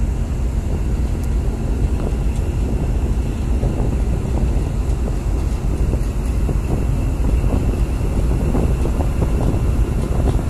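Tugboat's diesel engine running steadily under load as it tows a tanker on a line: a loud, even, low rumble heard from on deck.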